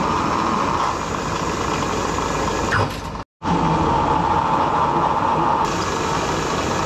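Manual milling machine running, drilling holes in metal: a steady, loud machine noise with a hiss over a low rumble, which breaks off for an instant a little under halfway through and resumes unchanged.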